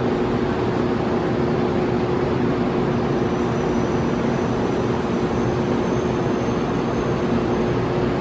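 Steady running noise inside the cabin of an N700 series Shinkansen train: an even rush with a low rumble and a constant hum.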